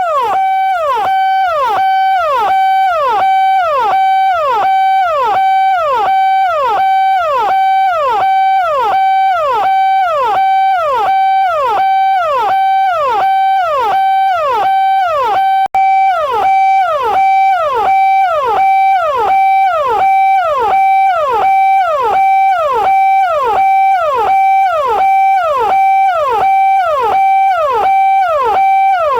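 Indian police siren sounding in a repeating cycle: a steady high tone that swoops down in pitch at the end of each cycle, a little faster than once a second. It cuts out for an instant about halfway through.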